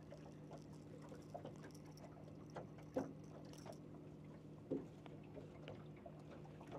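Faint handling noises of fishing tackle in a soft tackle bag: scattered small clicks and rustles, with two louder knocks about three seconds in and again near five seconds. A faint steady low hum runs underneath.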